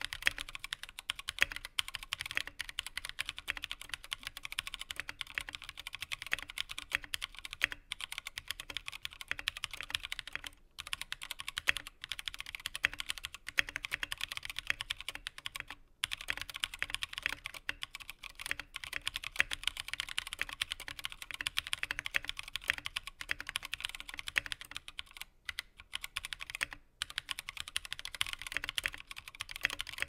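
Steady typing on a custom mechanical keyboard with Novel Keys Cream linear switches, their springs lubed with Krytox 205g0, on a POM plate in a brass-weighted Sirius case, with KAT Alpha PBT keycaps. A rapid clatter of keystrokes and space-bar hits, with a few short pauses.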